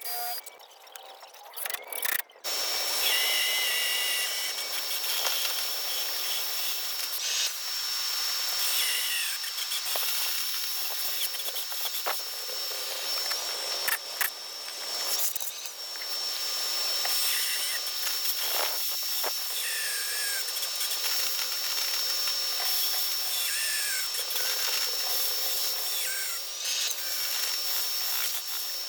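Electric drill running steadily as it bores holes for floating shelf brackets, starting about two seconds in, with a thin high motor whine that shifts briefly a few times.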